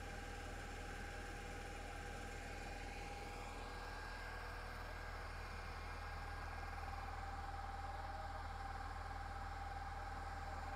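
An engine running steadily, a constant hum with a steady whine.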